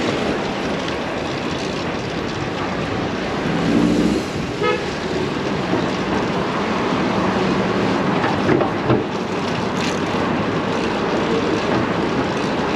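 Steady road-traffic and wind noise heard from a moving bicycle weaving through slow city traffic, with a short car-horn toot about four seconds in.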